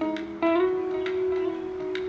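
Background music: a couple of plucked notes, then one note held for over a second.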